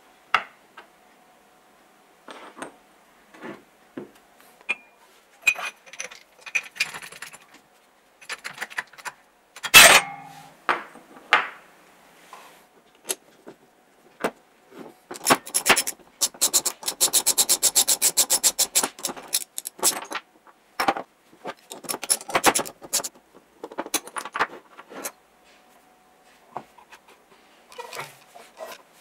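Metal hand tools and drill parts being handled and worked on a wooden workbench, including a bearing puller: scattered clinks, knocks and scrapes. There is a sharp metallic knock about ten seconds in, and a run of fast, even clicks lasting about four seconds in the middle.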